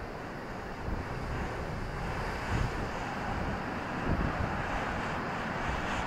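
Rough sea surf breaking and washing onto a beach, a steady rushing noise that swells about two seconds in, with gusts of wind buffeting the microphone.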